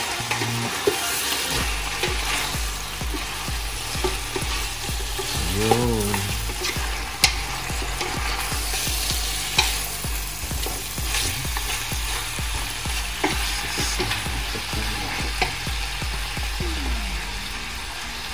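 Meat sizzling as it is sautéed in a pan, with a steady frying hiss and irregular clicks and scrapes from a spatula stirring it against the pan.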